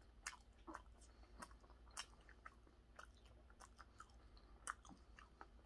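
Faint chewing of raw tuna belly sashimi: scattered soft clicks from the mouth.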